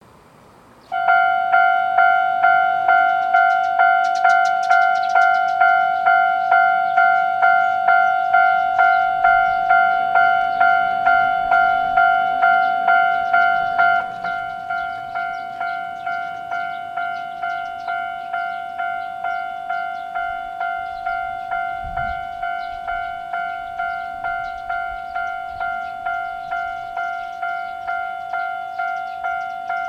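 Japanese railroad crossing warning bell ringing, a repeating 'kan-kan' strike about one and a half times a second. It starts about a second in and is a little quieter from about halfway on.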